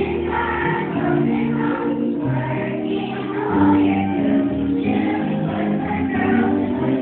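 A children's choir singing together with musical accompaniment, sustained notes running on without a break.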